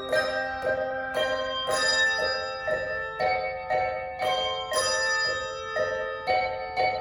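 A handbell choir playing a melody in chords, bells struck about twice a second, each note ringing on bright and clear until the next.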